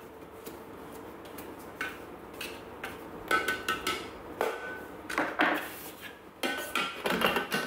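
Plastic spatula scraping and knocking against the inside of a Thermomix stainless-steel mixing bowl, giving a run of irregular clanks with a metallic ring. Near the end the bowl is set back into the machine's base.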